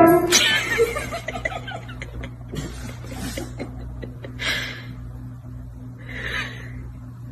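A person laughing off-camera in several short bursts, the loudest just after the start, over a steady low hum.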